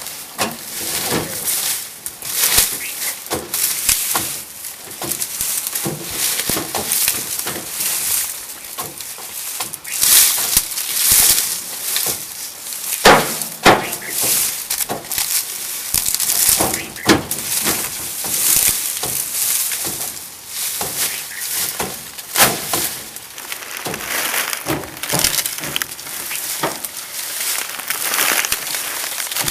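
Dry cut sugarcane stalks and leaf trash crackling and snapping in dense, irregular bursts as the cane is handled and trodden.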